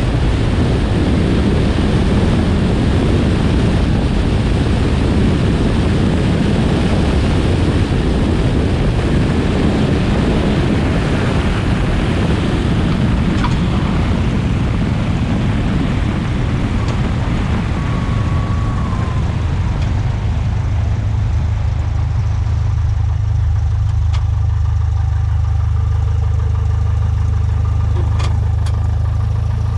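Cessna 172 landing: airflow rushes over the outside-mounted camera during the final approach and touchdown. About two-thirds of the way through the rush fades as the plane slows on the runway, leaving the piston engine's steady low idle drone.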